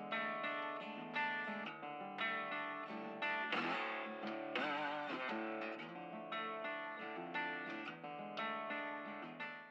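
Background music: plucked guitar playing a steady rhythm of notes and chords, with a brief wavering, bending passage midway, fading near the end.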